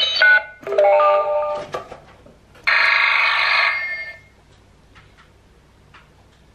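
Electronic sounds from a battery-powered Pocoyo baby toy: a short electronic tone, then a quick run of stepped beeping notes about a second in, then a buzzy electronic ring lasting just over a second from about 2.7 seconds. The sounds stop a little after 4 seconds.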